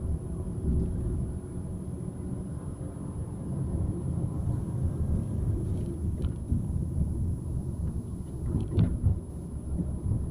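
Uneven low rumble of a vehicle driving along a town street: road and engine noise. There are brief sharper sounds about six seconds in and again about nine seconds in; the second is the loudest moment.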